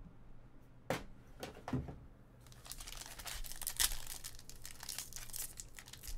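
Two short knocks, then from about two and a half seconds in a trading-card pack's plastic wrapper crinkling and tearing as it is pulled open.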